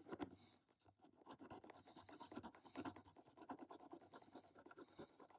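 Small hand file scraping in quick, faint back-and-forth strokes on a die-cast toy car body, filing away a casting mark. There is a short lull about a second in.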